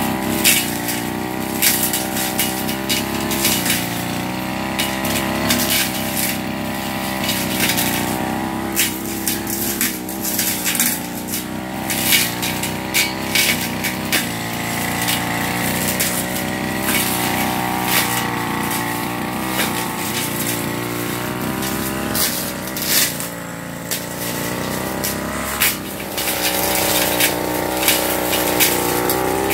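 Backpack brush cutter's small engine running at cutting speed, its pitch wavering up and down as the cutting head swings through grass and weeds, with many sharp ticks and snaps as it strikes vegetation.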